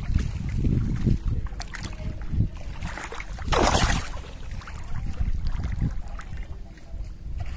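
Water sloshing and lapping close to the microphone, with one loud splash about three and a half seconds in, over a low rumble of wind on the microphone.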